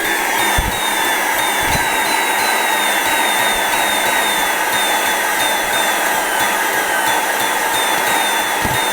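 Vacuum cleaner motor running steadily on interrupted power from a variac at 270 V, pulsed at 3 Hz yet spinning as if on constant power. A faint high note dips repeatedly, about three times every two seconds.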